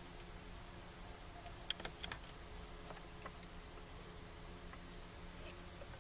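A few light, scattered clicks and taps of a screwdriver and fingers working at the water pump's toothed pulley and belt on the plastic pump housing, the sharpest cluster about two seconds in, over a steady low hum.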